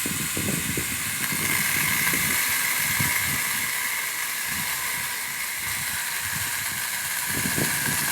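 STIHL GTA 26 battery pruner's small electric motor and chain running with a steady high-pitched whine over a hiss. The pitch rises a little about a second and a half in, dips again later, and the sound stops right at the end.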